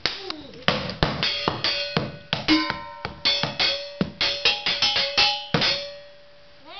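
A toddler banging drumsticks on an improvised drum kit of upturned metal pots, a colander and a toy drum. The strikes come irregularly, about four a second, and a metallic ring carries between the hits. The beating stops a little before the end, leaving a ring that fades away.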